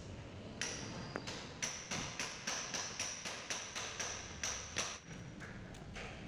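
A quick run of about a dozen sharp taps, roughly three a second, each with a high ring, stopping about five seconds in.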